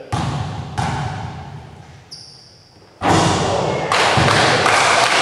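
A basketball bouncing twice on a gym floor, each bounce echoing in the hall, and a brief high squeak about two seconds in. About three seconds in, a loud, dense noise close to the microphone takes over and stays.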